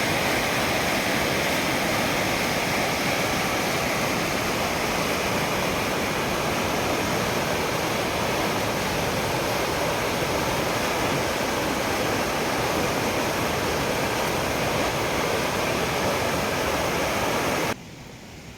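Steady, full rush of water pouring over a waterfall, cutting off suddenly near the end.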